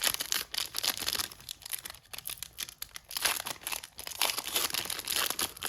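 A foil trading-card pack wrapper being torn open and crinkled in the hands, in crackly bursts with a short lull partway through.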